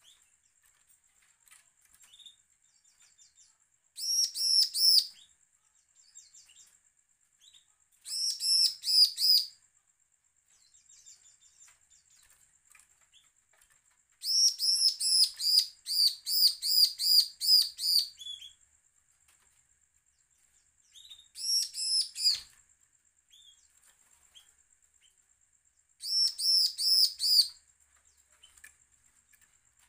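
Bar-winged prinia (ciblek) singing in bursts of rapidly repeated, high ringing notes, five bursts with the longest running about four seconds, and soft chips between them. It is the threatening, challenging song that keepers play to provoke other ciblek into singing.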